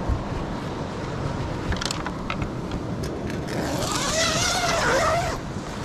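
A tent door zipper is pulled open in one rasping stroke of almost two seconds, starting about three and a half seconds in, its pitch wavering as the pull speeds and slows. Before it come a few light handling knocks.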